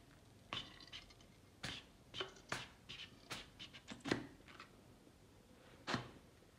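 Plastic Holi pichkari being worked: a string of faint, irregular clicks and short puffs from its plunger and nozzle as air pressure is pushed through it, the last puff a little longer.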